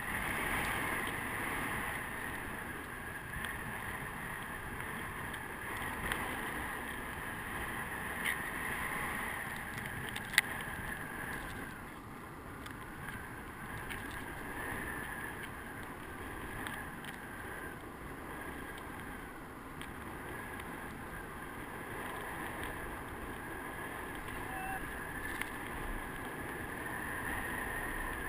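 Rushing airflow over a camera mounted on a paraglider wing as the glider spins in a SAT, with a faint wavering whistle and a few sharp clicks.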